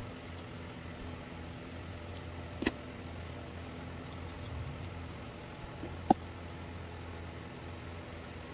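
Light scraping and ticking of a metal dental pick on the solder pads of an LED strip, with a few small metal clicks, the loudest about six seconds in and briefly ringing, over a steady low hum.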